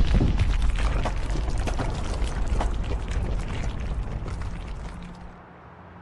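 A sudden loud burst, followed by a crackling rush of noise that fades away over about five seconds.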